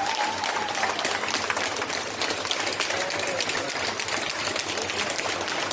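A crowd of people clapping steadily, a dense continuous applause with a few faint voices calling out over it.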